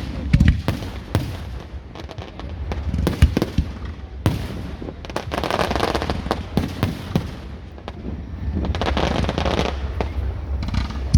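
Aerial fireworks going off: a string of sharp bangs, with two longer spells of dense crackling around the middle and near the end.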